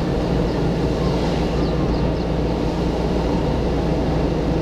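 Steady car engine and tyre noise from inside a car driving uphill, the engine working against the climb.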